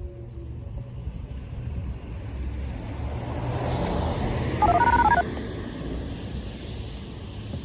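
Passing road-vehicle noise, a low rumble that swells towards the middle, with a short burst of electronic beeping tones lasting about half a second, the loudest thing heard.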